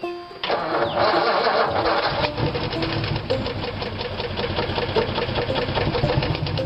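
1955 Ford's 272 Y-block V8 cold-starting after sitting all winter: it cranks briefly, catches about two seconds in, and runs with a fast, steady knock, the sign of a knocking connecting rod.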